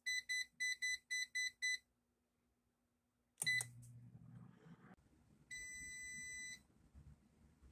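Digital air fryer's touch control panel beeping: a quick run of about seven short high beeps as its temperature buttons are pressed, a single beep a little later, then one longer beep of about a second.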